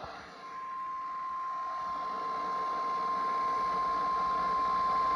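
NOAA Weather Radio warning alarm tone: a steady single-pitched beep just above 1 kHz that starts about half a second in and slowly grows louder over faint radio hiss, the signal that a new warning broadcast is about to begin.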